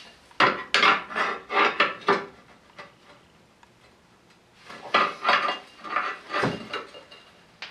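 Metal hand tools clanking and knocking against metal engine parts in two runs of sharp strikes with a quieter pause in between.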